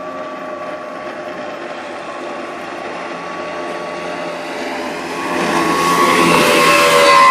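Aluminum Bentz boat's engine running at speed through shallow water with a steady whine. It grows louder about five seconds in as the boat passes close, and the rush of its spray and wake joins in.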